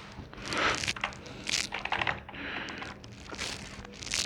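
A few scattered clicks and rustles from a Redgear Blaze semi-mechanical gaming keyboard as it is handled and its keys are pressed.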